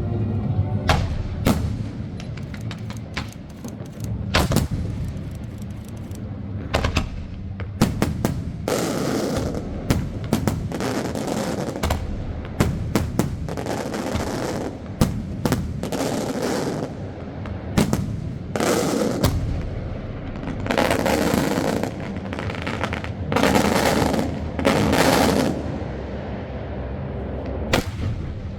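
Fireworks going off in quick succession: many sharp bangs, some in rapid clusters, with several longer noisy bursts lasting about a second each between about 8 and 26 seconds in.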